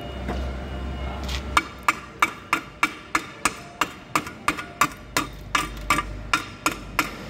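Steel striking a stick-welded steel block in quick, even knocks, about three a second, each with a short metallic ring, starting about a second and a half in: knocking the slag off the weld beads.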